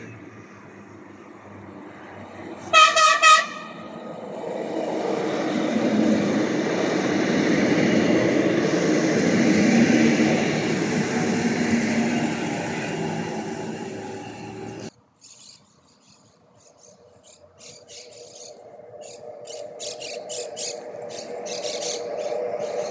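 Electric commuter train giving two short horn blasts, then a double-deck electric commuter train running past close by, loud for about ten seconds. The sound breaks off suddenly, then builds again with clicks of wheels over rail joints and a steady whine as a second electric train approaches.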